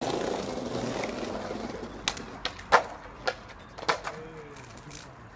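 Skateboard wheels rolling on pavement, fading, then the board clattering down in a series of sharp knocks after a trick, the loudest about two and a half seconds in.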